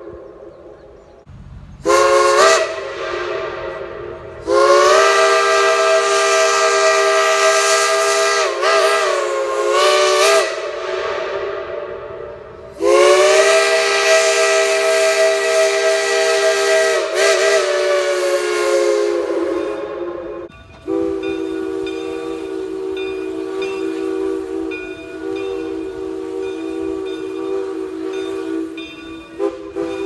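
Steam locomotive chime whistle, several notes sounding together: a short toot, then two long blasts whose pitch wavers briefly as the whistle is worked. After a short break a quieter, steady whistle note holds on to the end.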